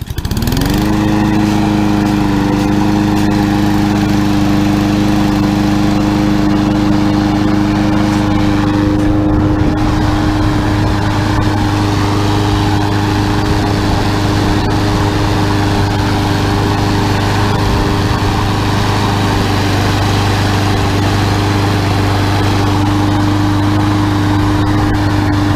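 Riding lawn mower engine rising in pitch over about a second, then running steadily at high throttle.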